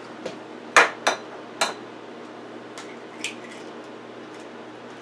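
An egg being tapped against the edge of a dish to crack it: three sharp knocks about a second in, then a couple of faint clicks.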